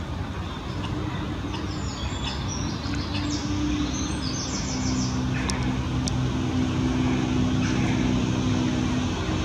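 A steady low motor hum, like distant road traffic, growing louder over the second half, with small birds chirping short high notes around the middle.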